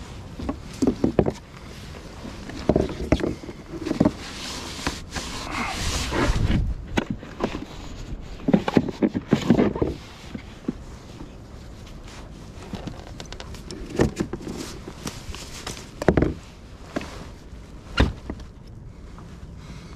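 Irregular knocks, thumps and scraping as a fish is handled and moved about on a plastic kayak deck, with rustling noise at times.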